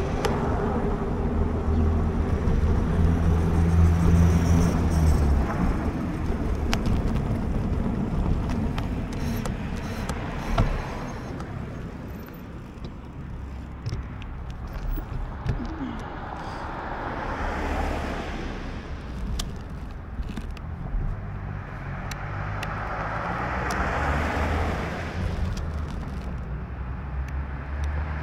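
Wind rumbling on a bike-mounted action camera's microphone during an e-bike ride, heaviest in the first few seconds, with occasional ticks and knocks. Cars pass on the street about two-thirds of the way in and again near the end, each a swelling hiss of tyres.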